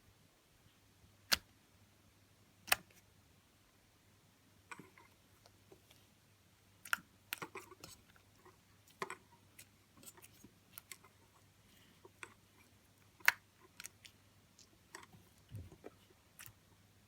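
Fluffy slime being squeezed and stretched by hand, giving irregular sticky clicks and crackling pops, with a few sharper, louder clicks.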